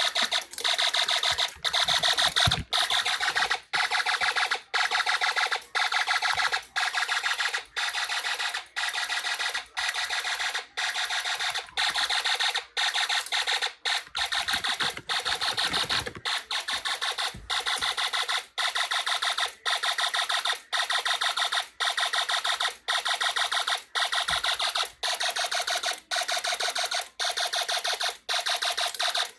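Homemade Snap Circuits fire alarm sounding on its fast "turbo speed" pattern: a buzzy, high-pitched alarm tone pulsing about one and a half times a second with brief gaps, each pulse fluttering rapidly.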